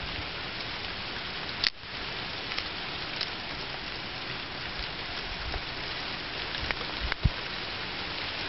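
Freezing rain falling steadily, a constant hiss of ice pellets and drops on the snow and deck, with a sharp click about two seconds in and another near the end.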